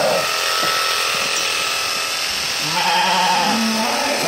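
Electric sheep-shearing handpiece buzzing steadily as it runs through a lamb's fleece. About two and a half seconds in, a sheep bleats once, a wavering call lasting about a second.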